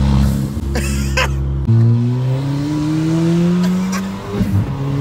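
Ford Fiesta ST Mk7's 1.6-litre turbocharged four-cylinder through a Milltek full-tube exhaust, heard from inside the cabin with the window open. It holds a steady drone, then about two seconds in the note climbs as the car accelerates, dips briefly at a gear change near the end, and climbs again.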